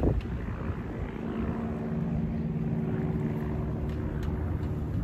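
A steady low mechanical drone with a humming tone, like an engine or motor running without change in pitch. A single knock comes right at the start.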